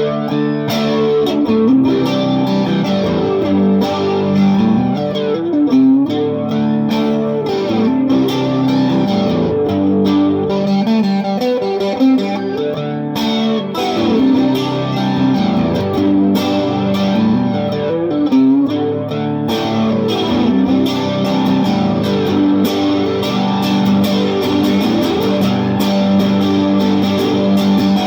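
Japanese Fender Telecaster electric guitar played continuously through a Vox AC15 amp, with a Vox flanger and a linear power booster pedal both switched on, giving a lively, slightly distorted flanged tone. Chords are struck again and again.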